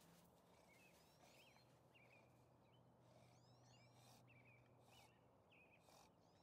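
Near silence with faint bird song: short phrases of chirps and sweeping notes, repeated every second or two, over a faint steady low hum that fades about five seconds in.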